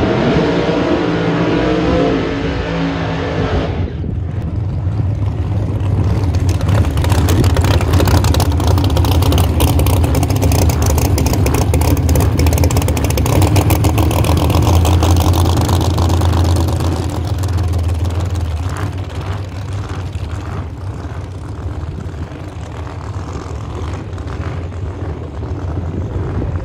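Pro Mod drag car's V8 engine revving high during a burnout, cutting off about four seconds in. It then runs with a deep, rough, pulsing note, loudest in the middle and fading toward the end as the car backs away.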